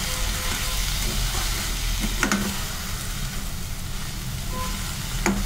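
Fenugreek leaves sizzling in hot oil in a pan while a metal spatula stirs them, with two sharp clinks of the spatula against the pan, about two seconds in and again near the end.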